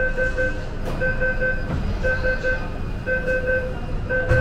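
Metro train door warning beeper sounding a repeating electronic beep-beep, a short cluster about once a second, over the low rumble of the train. A low thud comes near the end.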